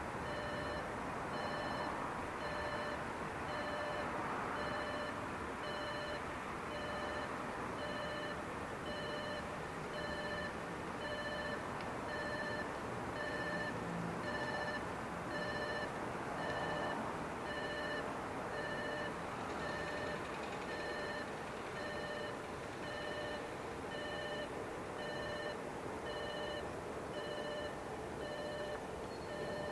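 Japanese railway level-crossing warning bell ringing, its electronic ding repeating at an even pace: the crossing is closed for an approaching train.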